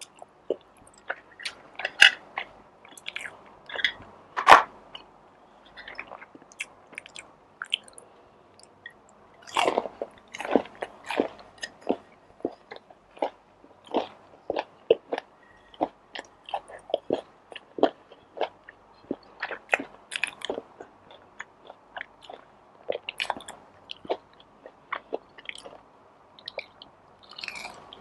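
A person chewing and biting food close to the microphone: irregular wet mouth clicks and crisp bites, several louder bites scattered through.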